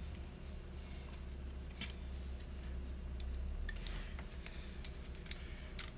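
Small, irregular plastic clicks and taps from a Dremel rotary tool's switch and housing parts being handled and seated by hand, coming more often in the second half, over a steady low hum.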